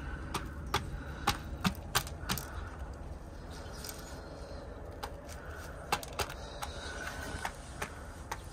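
Chicken pecking grain off a plastic tub lid: irregular sharp taps of the beak on the plastic, quick at first, then sparser.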